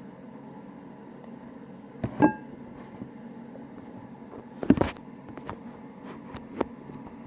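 A few knocks and clicks over a steady low hum. The first, about two seconds in, rings briefly; the loudest comes as a short cluster near five seconds, followed by a few fainter clicks.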